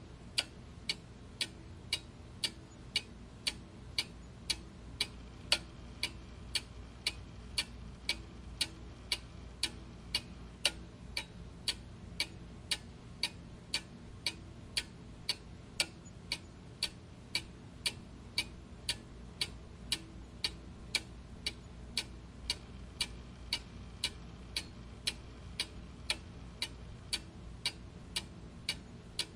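Clock ticking steadily, about two ticks a second, over a faint low background hum.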